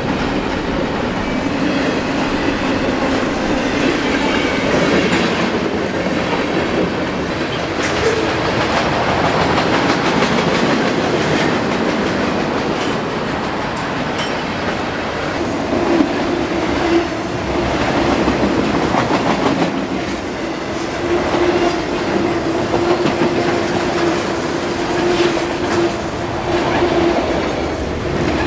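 Freight train cars rolling past, wheels clicking over the rail joints in a steady clickety-clack, with a thin steady whine from the wheels through the second half.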